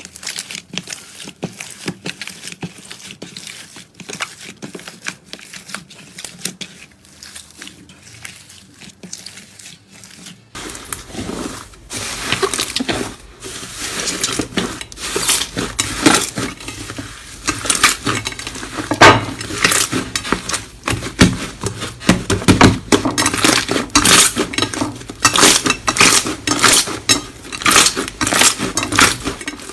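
Slime being squeezed, pressed and poked by hand, making dense clicks and crackling pops. It is fairly quiet for the first ten seconds or so, then turns louder and busier.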